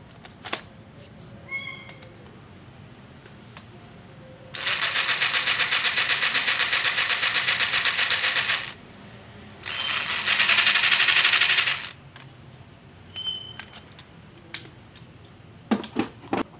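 Five Star 5-in-1 cordless combo tool's motor running with an attachment head fitted, with a fast, even rattle, switched on for two bursts of about four seconds and two seconds. Handling clicks near the end.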